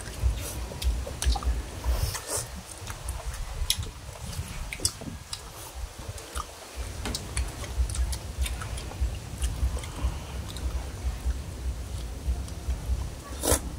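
People eating bamboo-shoot curry with spoons: chewing and slurping the broth, with many short clicks of metal spoons against a metal serving tray, the loudest near the end. A low rumble runs underneath.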